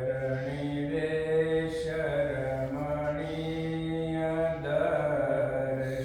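A man chanting a Sanskrit devotional verse in long held notes, pausing briefly for breath about two seconds in and again near five seconds.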